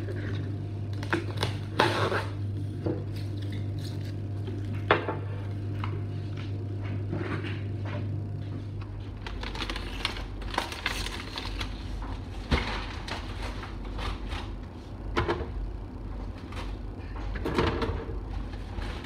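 Kitchen handling noises: cling film rustling as food is wrapped, then the shrink-wrap of a multipack of water bottles crinkling as it is carried and set down, with scattered knocks and clicks. A steady low hum underneath stops about nine seconds in.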